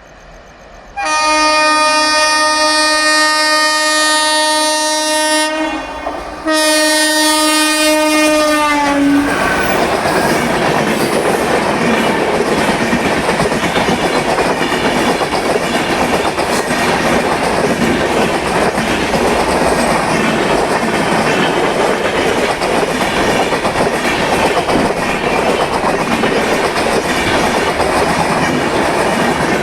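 Indian Railways electric locomotive's horn blown twice: a long blast, then a shorter one that drops in pitch as the locomotive passes. The steady clatter and rumble of the coaches running past over the track follows.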